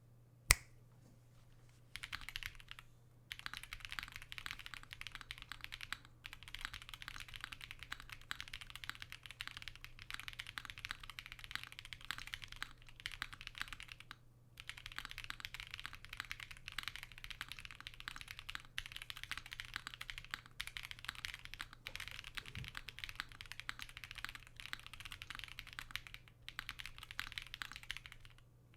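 Typing on a Wave88 mechanical keyboard with lubed BBN switches and Owlstab stabilizers, built without PE foam: fast, continuous key presses with brief pauses about 3 and 14 seconds in. A single sharp click just before the typing starts is the loudest sound, over a faint low hum.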